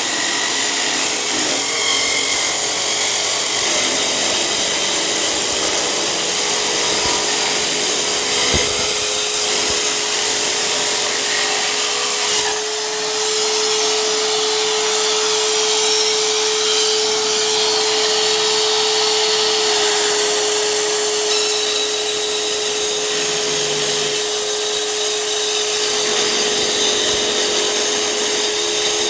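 Hyper Tough 4.5-inch mini circular saw running continuously with a steady motor whine. The hiss turns duller about twelve seconds in and brightens again about eight seconds later.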